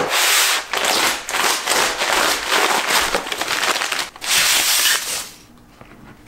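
Brown wrapping paper crinkling and crackling as it is pulled open by hand to unwrap a knife, in uneven bursts that stop about five seconds in.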